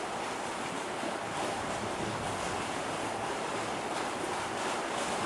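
A steady rushing noise with no pitch or rhythm, even in level throughout.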